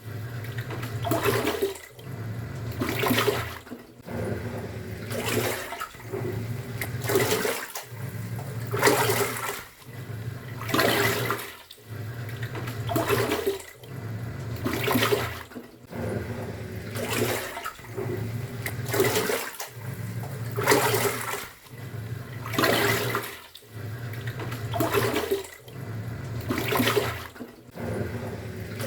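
Top-loading pulsator washing machine agitating: the motor hum cuts and restarts about every two seconds as the pulsator reverses direction, each turn followed by a surge of water sloshing in the tub.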